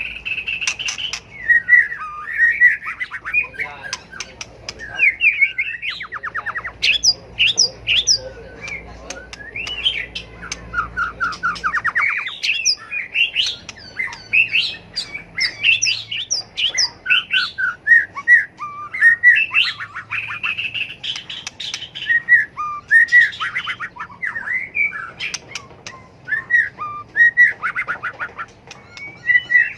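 White-rumped shama singing its competition song: a fast, unbroken string of varied whistles, trills and harsh rattling notes, with sharp clicks between phrases.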